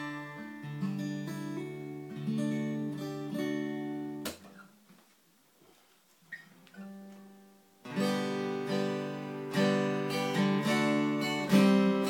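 Red-label Yamaha FG steel-string acoustic guitar, strung with Martin 11s, being played: chords picked over the soundhole. About four seconds in the playing stops with a knock, leaving a few seconds of near silence. Louder strummed chords then start near the end.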